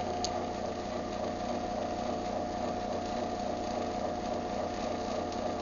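Craftsman garage door opener motor running steadily on a closing cycle, a constant hum with a steady whine.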